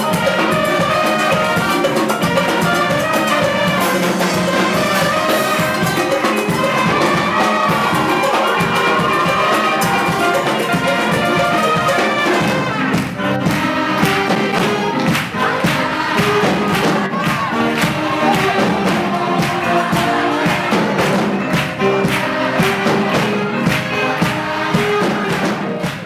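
Lively brass-band music led by saxophones and trumpets, running without a break and moving into a different passage about halfway through.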